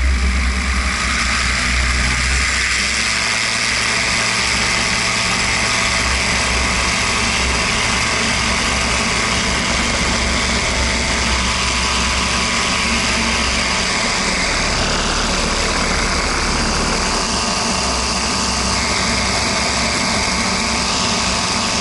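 Zenair 701 light aircraft's engine and propeller running steadily at take-off power through the grass-strip take-off roll and lift-off, with wind noise on the wing-mounted camera.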